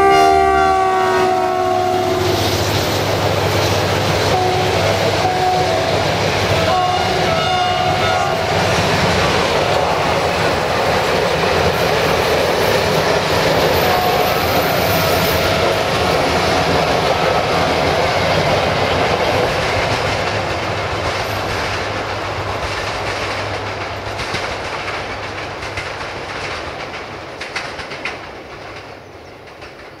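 A diesel-hauled passenger train passing close by: the locomotive's chord horn ends about two seconds in, then the coaches roll past with wheels clicking over the rail joints, and the sound fades over the last ten seconds as the train pulls away.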